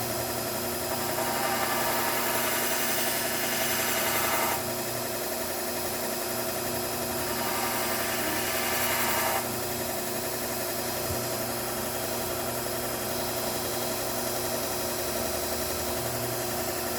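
Bucktool slow-speed belt sharpener's motor running steadily, with two louder stretches of grinding hiss as a scissor blade is held against the moving belt, each ending abruptly as the blade is lifted off.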